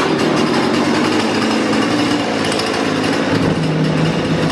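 Warm, freshly carburetor-tuned Husqvarna two-stroke chainsaw catching on a pull of the starter cord and then running steadily at idle. Starting this readily when warm is the sign of a good tune.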